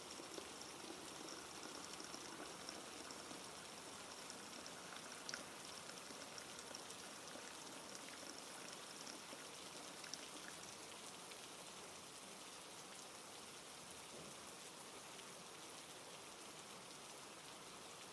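Steady rain falling, an even hiss with scattered drops ticking, a few louder ones about five and ten seconds in.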